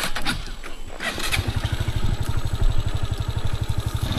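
Motorcycle engine starting a little over a second in after a few knocks, then running with a rapid, even putter.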